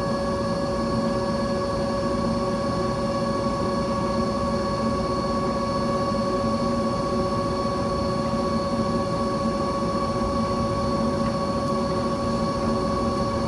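Steady drone of running machinery, a constant hum of several fixed pitches over a noisy rumble.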